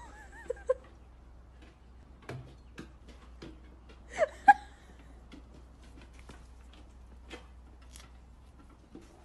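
Faint, scattered taps and knocks from a dog's paws and a carried stick on wooden steps, with one short voiced sound about four seconds in.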